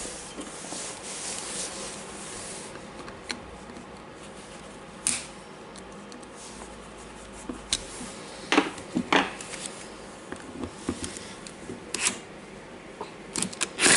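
Hand work on a stubborn screw in an angle grinder's gear housing: low scraping and rubbing of a tool against the screw and housing, with several sharp clicks.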